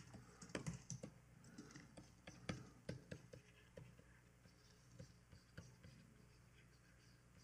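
Faint clicking of computer keyboard keys: a quick run of presses in the first three seconds, then a few scattered ones.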